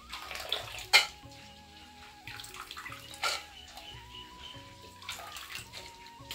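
Water sloshing and splashing as hands stir and wash chopped papaya flowers in a steel bowl, with two sharp clacks, about a second in and just after three seconds. Soft background music plays throughout.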